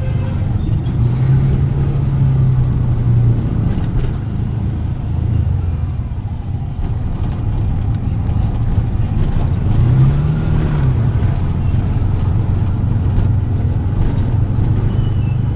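Motor vehicle engine running steadily under a low rumble, its pitch briefly rising and falling back about ten seconds in.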